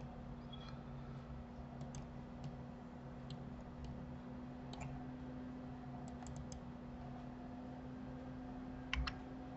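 Faint computer mouse clicks, scattered and irregular, with a louder pair of clicks near the end, over a steady low hum.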